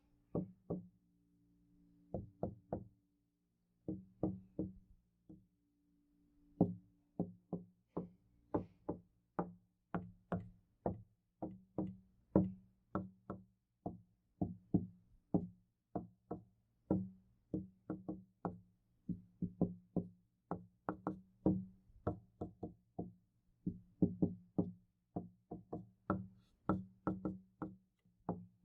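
Knocking on a door, each knock with a short low ring. The first few seconds come in short clusters with pauses, then the knocks run on steadily at about three a second, some harder than others.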